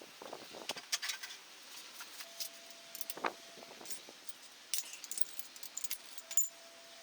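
Irregular light metallic clinks and clicks of hand tools and metal parts being handled during engine work.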